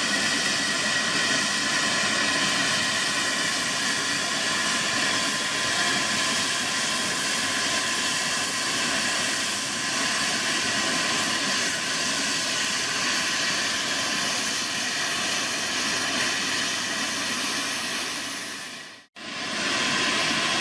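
Steady jet aircraft noise: an even, loud hiss with a faint steady whine in it. It cuts out for an instant near the end.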